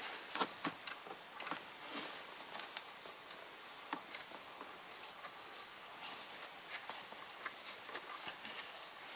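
Faint small clicks and scrapes of a hand working the oil filler cap loose on a Champion 2000W inverter generator's engine, with a few sharper clicks in the first second.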